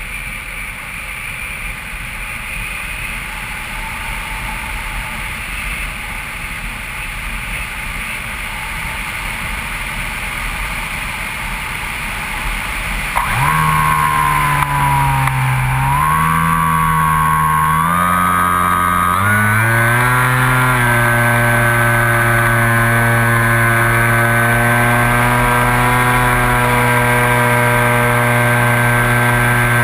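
Wind rushing past a Skywalker FPV plane's onboard camera while it glides, then about halfway through its electric motor and propeller start up. The motor's hum climbs in pitch in a few steps as the throttle is opened, then holds steady and louder to the end.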